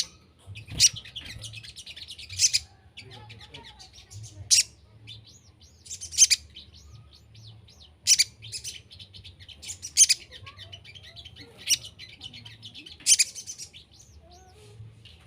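Sogon songbird calling: loud, sharp, high-pitched calls repeated about every two seconds, with softer chirping and twittering between them. It is a lure call meant to make wild sogon birds answer.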